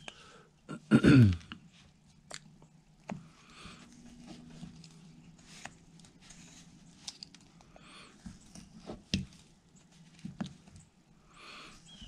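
Carving knife cutting and shaving a basswood block: faint scrapes and small sharp clicks as the blade goes in and chips come away. A short vocal sound about a second in is the loudest thing.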